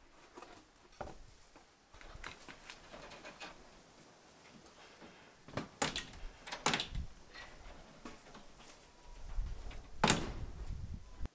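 Clicks, rattles and knocks of a wire-mesh floor panel being worked loose from a wooden rabbit hutch. There are two sharp knocks close together about halfway through and a louder one near the end.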